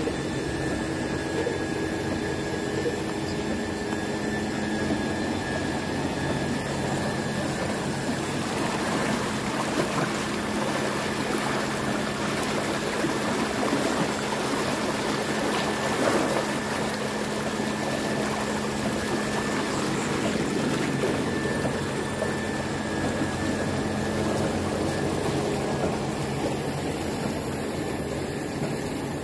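Paddy-field water pump running: a steady rush of water pouring from its outlet over the steady hum of its motor.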